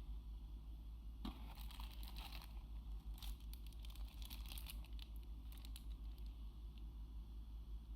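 Packaging being handled during an unboxing: crinkling and rustling with small clicks, in two spells, one from about a second in and another from about three to five and a half seconds in, over a steady low hum.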